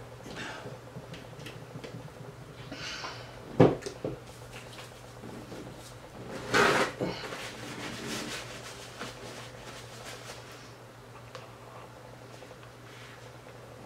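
Handling noises at a table: a sharp knock about three and a half seconds in, and a louder burst of rustling about three seconds later, over a steady low hum.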